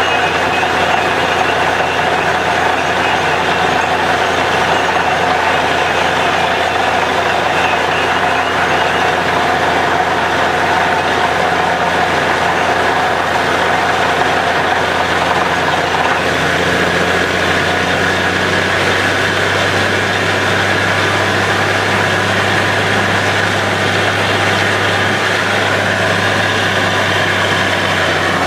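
Truck-mounted borewell drilling rig running steadily while drilling, a loud continuous machine drone with a steady low hum, as water and rock cuttings are blown up out of the hole. The low engine note shifts slightly upward about halfway through.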